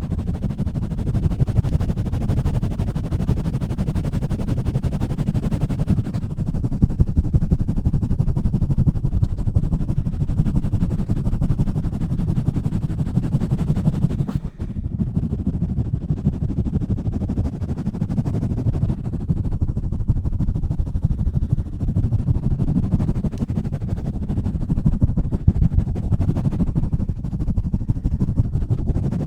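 Hands pumping, rubbing and scratching fast and roughly right on a microphone, giving a dense, muffled low rumble with a rapid crackle. It breaks off for a moment about halfway through.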